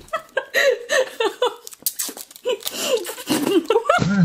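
Two women laughing and giggling with their mouths full while eating Jell-O, in short breathy bursts, with wet slurping and sucking of gelatin from the cups in between.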